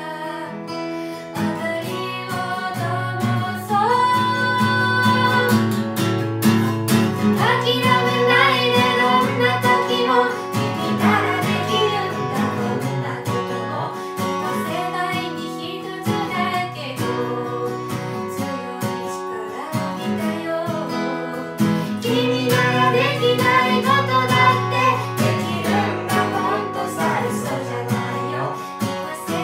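A woman singing a Japanese rock song in a cover, accompanied by a single strummed acoustic guitar, in a tiled bathroom.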